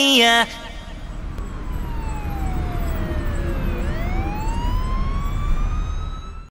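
The song's last note slides down and cuts off. A low rumble and hiss follow, with one slow siren-like tone that falls for about three seconds and then rises again.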